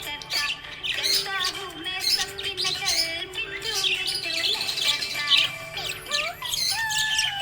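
Small pet parrots chirping and twittering in quick, busy bursts, over background music with a slow held melody.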